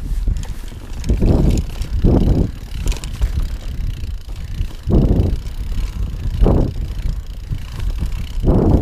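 Mountain bike riding down a rocky trail: steady tyre rumble and wind on the microphone, with several louder rattling surges as the bike rolls over rocks.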